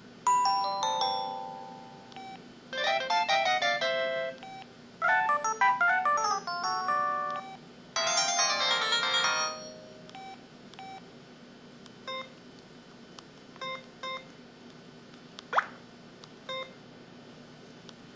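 A mobile phone's built-in alert tones played one after another: four short electronic melody jingles of several notes each, then a handful of single short beeps and one quick rising chirp about two-thirds of the way in.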